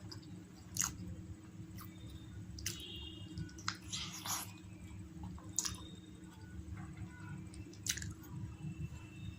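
A person chewing roti and egg curry close to the microphone, with wet mouth smacks and clicks about once a second over a steady low hum.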